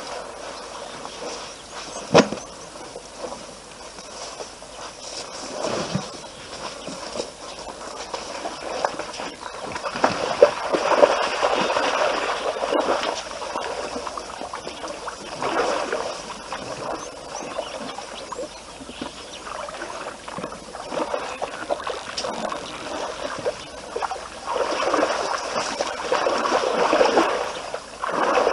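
Water splashing and sloshing as a baby elephant wades and plays in the shallow edge of a waterhole, coming in repeated bursts that are loudest about a third of the way in and near the end. A single sharp knock about two seconds in.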